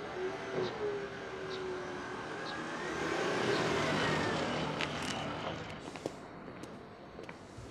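A black Mercedes-Benz sedan driving out and passing close by, its engine and tyre noise swelling to a peak about four seconds in and then fading away.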